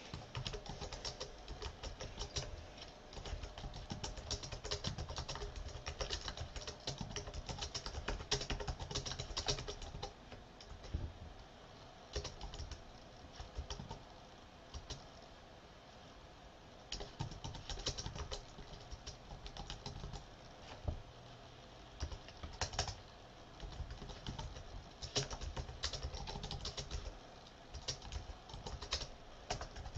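Typing on a computer keyboard: quick runs of key clicks, broken by short pauses between words and phrases.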